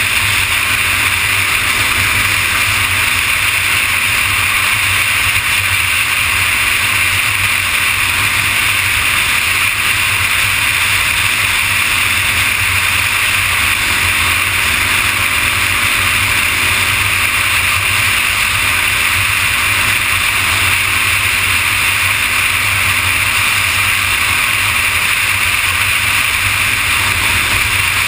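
Steady wind rush over the camera at freeway speed, with the Kawasaki ZX-6R's inline-four engine running evenly underneath at a constant cruise.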